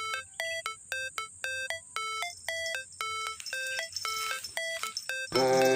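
Electronic intro music: a short bright synth-tone figure repeating about twice a second, like a ringtone, with fuller, louder music coming in near the end.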